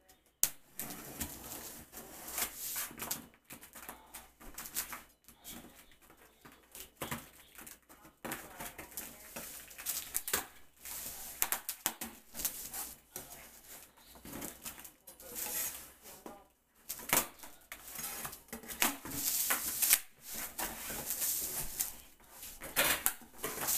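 Large kitchen knife cutting through packing tape and cardboard on a big shipping box: irregular scraping and scratching strokes, with sharp clicks as the blade catches and drags.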